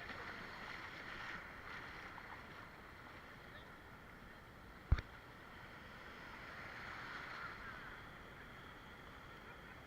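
Faint, steady hiss of water and wind, with one sharp knock about five seconds in.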